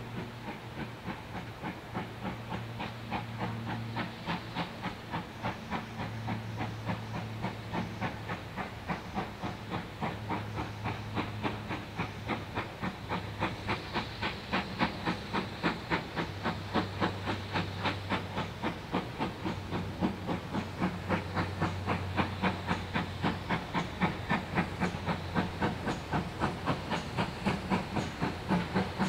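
GWR Manor class 4-6-0 steam locomotive No. 7820 Dinmore Manor hauling a short goods train. Its two-cylinder exhaust beats come at about four a second and grow steadily louder as it approaches.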